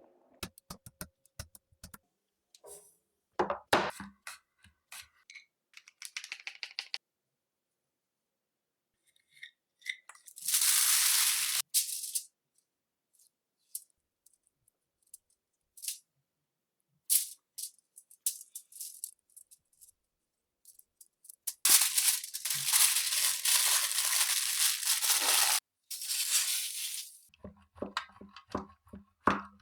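Kitchen food-preparation sounds in short edited clips: scattered clicks, knocks and rattles, and two spells of loud hissing, a short one about ten seconds in and a longer one from about 22 to 26 seconds in.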